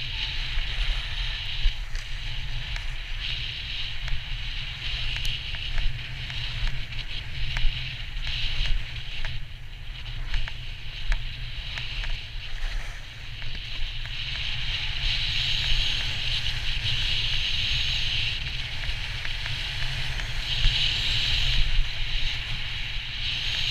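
Wind rumbling on an action camera's microphone while riding downhill, over the hiss and scrape of edges sliding on groomed snow, the hiss swelling and fading with the turns.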